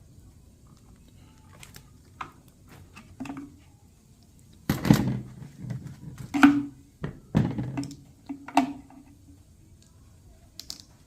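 Hands working with tools and small engine parts: scattered clicks and knocks, with a run of louder knocks and clatter from about five to nine seconds in.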